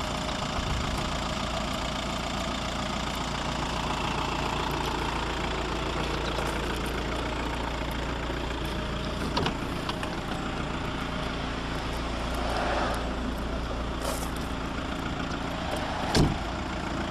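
Volkswagen Passat 1.9 TDI four-cylinder turbo-diesel idling steadily. Near the end there is a sharp click as the driver's door is opened.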